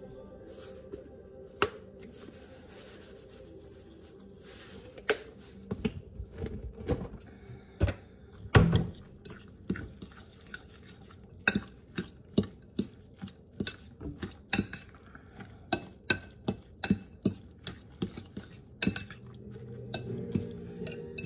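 A utensil clinking against a glass mixing bowl while stirring a wet bean-sprout and egg mixture. The clinks start a few seconds in, irregular at first with the loudest knock a little before the middle, then fall into a steady beat of about two a second.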